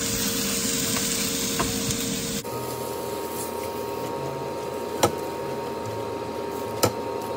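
Raw chicken pieces sizzling in a hot wok of oil with shallots, garlic and spring onion while a spatula stirs them. The sizzle is loud for about two seconds, then drops off suddenly to quieter frying under a steady hum, with two sharp knocks of the spatula against the wok later on.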